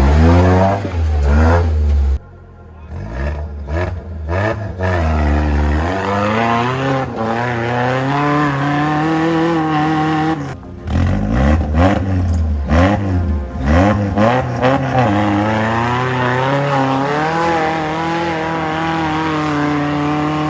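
Off-road 4x4's engine revving, its pitch rising and falling over and over, with brief drop-offs about two seconds in and again around ten seconds.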